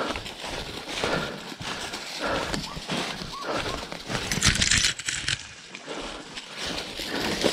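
Footsteps crunching through dry leaf litter while a leashed blood-tracking dog pulls ahead, panting. About four and a half seconds in, brush scrapes loudly past the camera for under a second.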